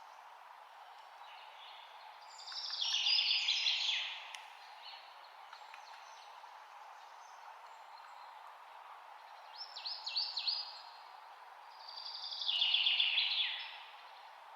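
Songbird singing: two rapid trilled phrases that fall in pitch, about nine seconds apart, with a short run of notes between them, over a steady background hiss.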